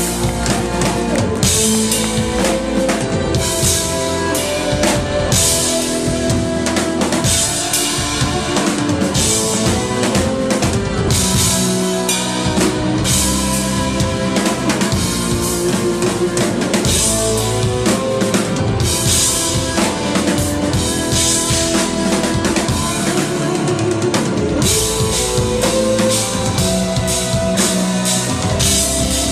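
Live rock band playing an instrumental passage: electric guitar over a full drum kit with steady kick and snare.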